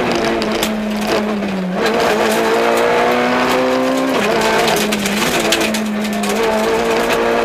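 Peugeot 106 XSI rally car's four-cylinder engine heard from inside the cabin, held at high revs under hard driving, with short dips in pitch about two and four seconds in as the revs drop and pick up again.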